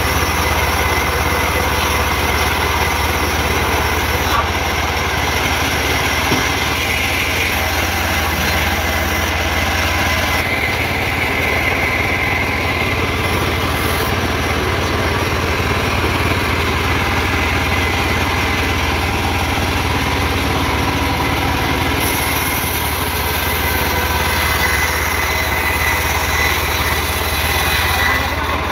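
Band sawmill running and cutting through timber: a loud, steady blade and motor noise that keeps on without a break.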